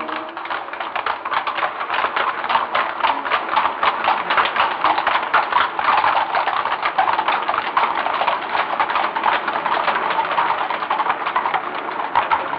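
Hooves of several horses clip-clopping on wet cobblestones: a dense, uneven clatter of many overlapping hoofbeats at a walk.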